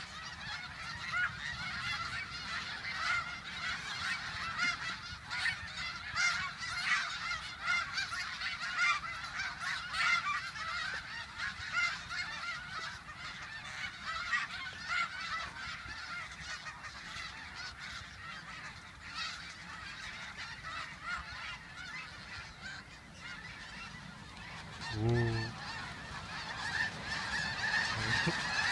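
A large flock of snow geese honking continuously in a dense, overlapping chatter. Near the end the honking grows louder as the flock starts to take off.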